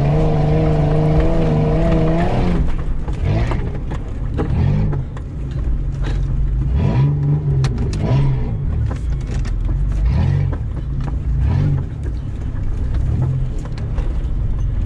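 Mitsubishi Pajero's V6 engine working under load on a trial course. For the first couple of seconds it holds steady, slightly wavering revs, then it revs up and down repeatedly, with scattered knocks from the vehicle.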